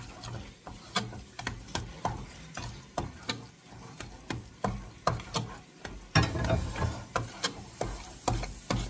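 Spoon stirring grits in a stainless steel saucepan, scraping and clicking against the pot about twice a second.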